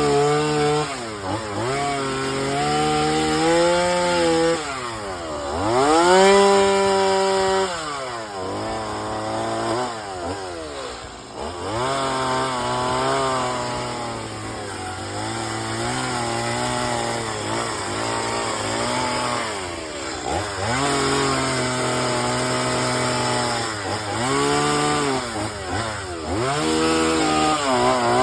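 Chainsaw carving wood, its engine revving up and dropping back over and over as the cuts are worked, with short dips in pitch between cuts.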